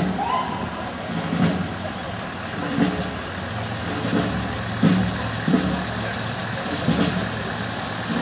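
A car engine idling at walking pace as it creeps along a street, with low irregular thumps every second or so.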